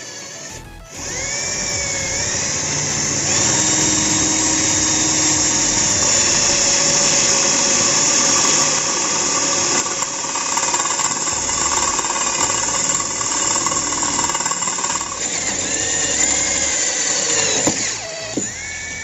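Buildskill 12 V cordless drill with a wood drill bit, boring into a piece of wood. The motor whines up about a second in, runs steadily for some sixteen seconds, winds down near the end, then briefly spins up again.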